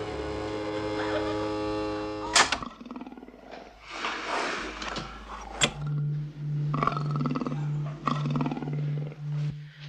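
Tense sustained orchestral chords end in a sharp stinger hit about two and a half seconds in. Then a black panther (black leopard) snarls and growls in short repeated bursts, and a low hum pulsing about twice a second comes in partway through.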